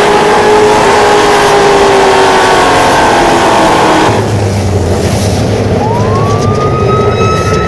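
Loud car engine running hard at high revs, its pitch easing slightly downward. About four seconds in it cuts abruptly to a deep, steady low rumble. Near the end a whine rises and then holds.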